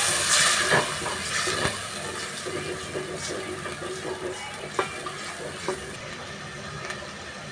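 Water hitting hot oil in an aluminium pan: a loud sizzle that fades over about two seconds into a steady frying hiss. A spatula stirs and scrapes the pan, with a few sharp clicks.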